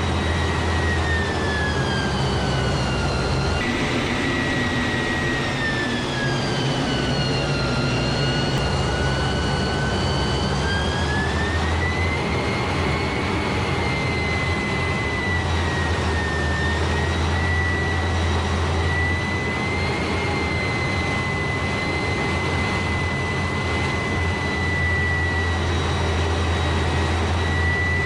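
Airbus A400M's four turboprop engines running steadily under a strong low hum, with a high propeller tone that slides down in pitch over several seconds, rises back and then holds steady.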